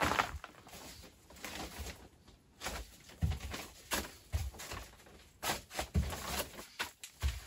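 Scuffing and rustling of someone crawling across a crawl-space floor of sand and plastic sheeting, with several soft thumps from knees, hands and gear.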